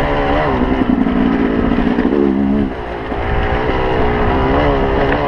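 Yamaha YZ250 two-stroke dirt bike engine riding under throttle, its pitch rising and falling as the revs change. The throttle eases off just under three seconds in, then opens again.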